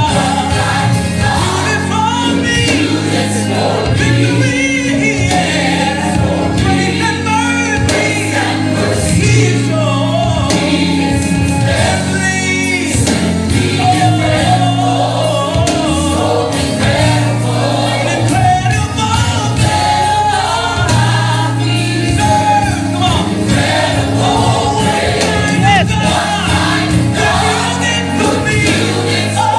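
Gospel music: a choir singing over a band, with a steady low bass line.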